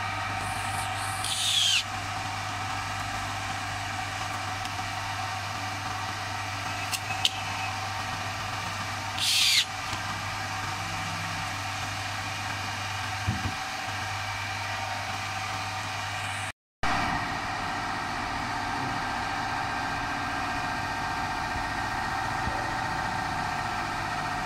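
Steady mechanical hum, with a few brief scrapes of MDF panels being handled, about two seconds in and again near the middle.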